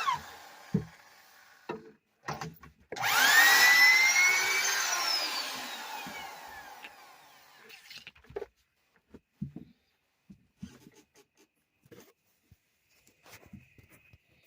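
Rockwell Model 82 electric drill with a half-inch bit: a run winds down right at the start. About three seconds in the motor speeds up with a rising whine, then is let off and coasts down over about three seconds. A few faint knocks and clicks follow.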